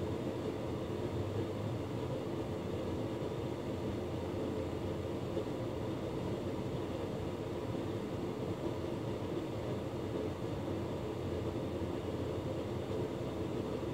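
Hotpoint Ultima S-Line tumble dryer running with a full load: a steady hum of the motor and fan as the drum turns.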